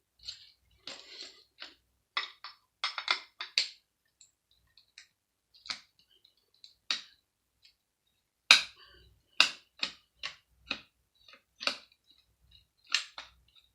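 Irregular sharp clicks and light metallic knocks of screws, metal parts and tools being handled while a power supply is dismantled. There is a quick cluster of clicks a couple of seconds in, and the loudest knocks come in the second half.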